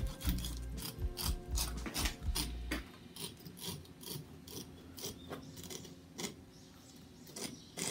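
Kitchen knife slicing open a conger eel along its belly, the blade scraping and clicking against the bones in a run of short, irregular strokes. A low hum underneath stops about three seconds in.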